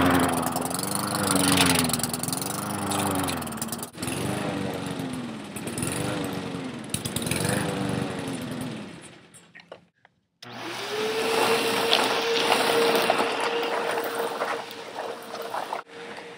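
Small engine revving up and down over and over for about nine seconds, then, after a brief break about ten seconds in, running at a steady high speed.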